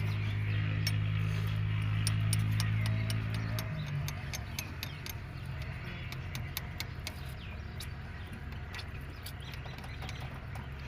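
Diesel tractor engine running steadily. About four seconds in it drops to a lower, rougher and quieter running, with sharp clicks and ticks throughout.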